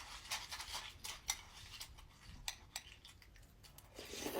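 A spoon clinking against a cereal bowl: a few light, scattered clicks, one at the start the loudest.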